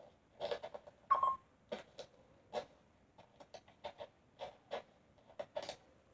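Animated-film foley effects: an irregular string of soft clicks, taps and scuffs, with a brief squeak about a second in.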